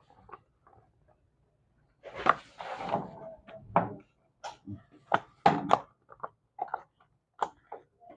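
Hard plastic clicks and knocks as a washing machine's control panel is handled and fitted into place, with a rustling scrape about two seconds in followed by a run of sharp, irregular clacks.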